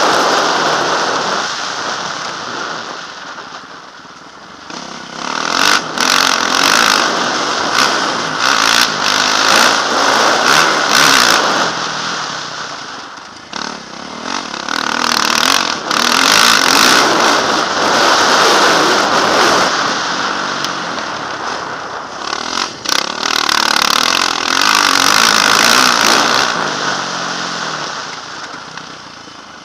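Yamaha motocross bike's engine revving up and down under hard riding on a dirt track. The throttle eases off about four seconds in, again around thirteen seconds in, and near the end, with the engine building back up each time.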